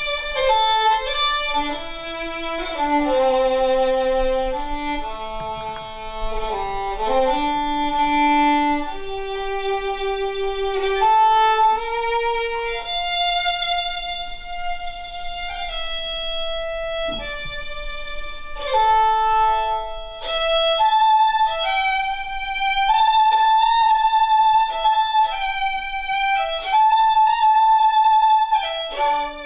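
Solo violin playing a slow melody, with held notes and occasional double stops.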